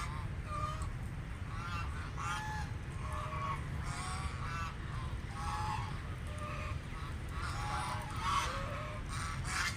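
Several ducks quacking in a rapid string of short, overlapping calls, over a steady low rumble.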